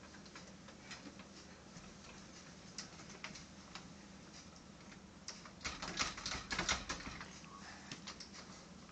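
Light taps and clicks of small hands patting and scratching at the slats of a louvered closet door, with a louder flurry of rattling taps about six seconds in.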